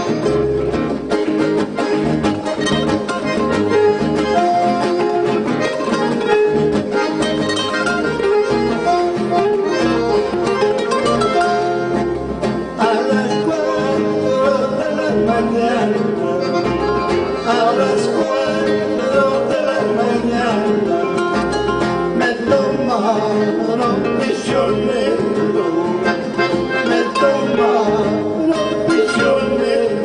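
Piano accordion and acoustic guitar playing a tune together, without a break.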